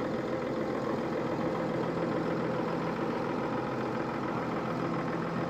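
Case IH Puma tractor's diesel engine idling steadily.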